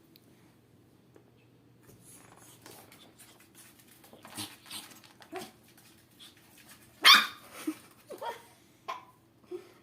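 Pekingese puppy barking: a few short barks, the loudest about seven seconds in, followed by several quicker, softer ones.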